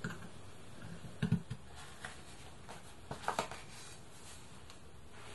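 Two soft knocks about two seconds apart, from a wooden-handled awl being pushed through a stack of paper pages into a wooden punching cradle, over faint room hiss.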